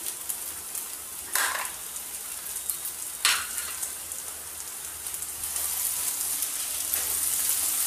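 Sago pearls, potatoes and peanuts sizzling as they fry in a nonstick kadai, with a steady hiss. Two short knocks come in the first half, and from about two-thirds of the way in a wooden spatula stirs the mix, making the frying grow louder.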